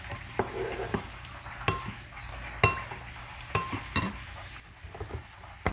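Metal spoon stirring a thin sauce in a ceramic bowl, clinking against the side of the bowl roughly once a second with short ringing tones.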